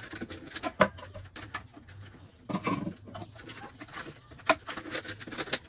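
Irregular light clicks and taps from hand work on a window-screen frame, with a pigeon cooing in the background.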